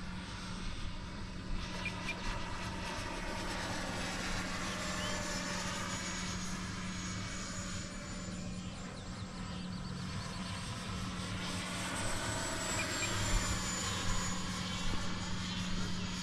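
Electric ducted fan of a Freewing Intruder RC jet (AvantiS v2 fan unit) whining in flight, its pitch slowly rising and falling as the plane circles, with a high whine gliding down in pitch past the end of the first three quarters as it passes. A steady low hum runs underneath.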